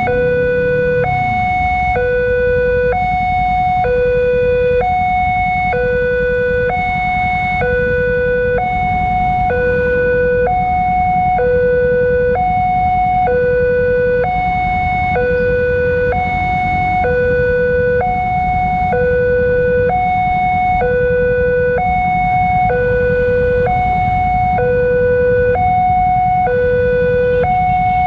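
Railway level-crossing warning alarm sounding a two-tone hi-lo pattern, a lower and a higher tone alternating about once a second, like an ambulance siren.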